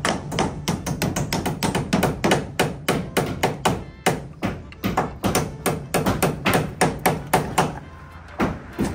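Hammer blows nailing a white wall panel to a wooden frame: quick, steady strikes, about three to four a second, with a short pause near the end before they resume.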